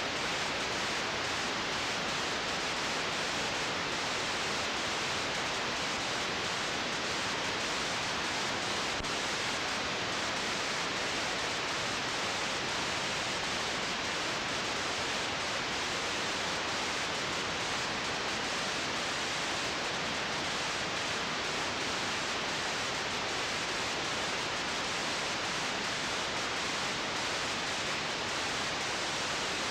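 Steady, even hiss of recording noise with nothing else on it, the sound of a blank stretch of old tape.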